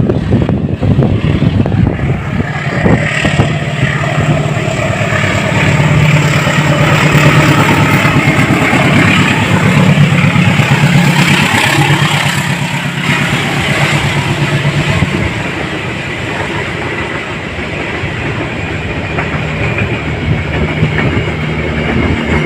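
Diesel-hauled train passing, with a steady low engine drone and rushing wheel-and-rail noise. The noise swells to its loudest about a third of the way in, then eases off.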